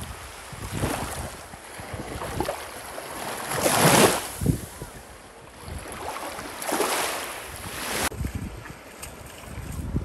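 Small waves lapping and washing up the sand at the water's edge, swelling about every three seconds, the loudest near the middle. Wind buffets the microphone underneath.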